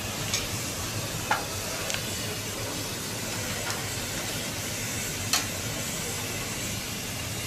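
A burning truck's fire: a steady hissing rush of flames with several sharp pops, the loudest a little past a second in and about five seconds in.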